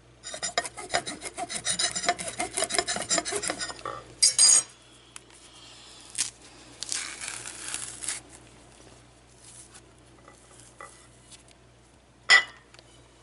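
Banana peel being torn and pulled down the fruit: a dense, rasping rustle for about four seconds, then a few shorter tearing strokes. A single sharp click comes near the end.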